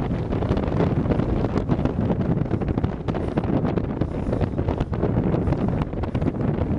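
Strong, gusting wind buffeting the microphone: a loud, constant low rumble that flutters throughout.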